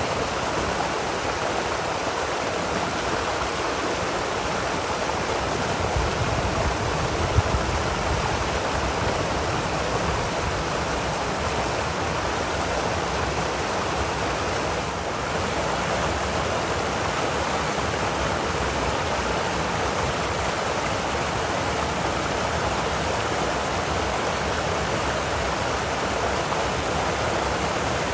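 Creek water pouring over a low rock ledge and churning into a white-water pool: a steady, loud rushing. A brief low rumble swells around six seconds in, with a single small bump at its peak.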